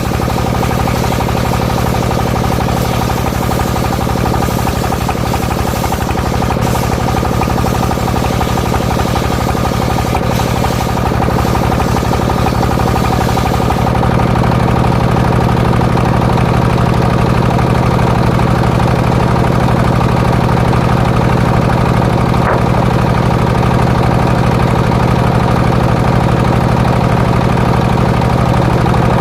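Engine of a homemade circular-saw rig running steadily with a low, even note. About halfway through, the high hissing sound drops away and the engine note becomes fuller and slightly louder.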